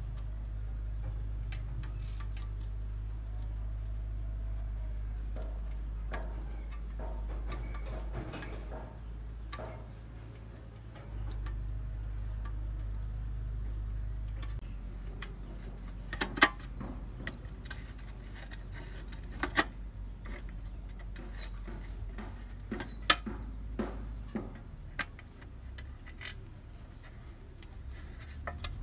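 Hand tools clicking and knocking on a rusty bicycle's crank and chain guard as parts are worked loose, with irregular sharp metallic knocks in the second half over a steady low hum.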